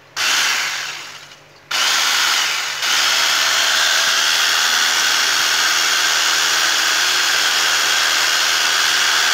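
Panasonic 12 V cordless drill/driver's motor and gearbox running on the trigger. A first short run fades and stops about a second and a half in; then it is started again and held running steadily. This is a test run on its freshly rebuilt 3S2P battery pack.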